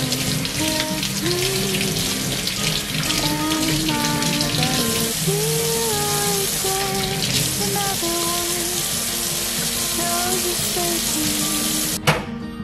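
Kitchen faucet running onto hands and an ear of sweet corn being rinsed in a steel sink, a steady splashing hiss, with background music playing over it. Near the end the water cuts off abruptly with a sharp click.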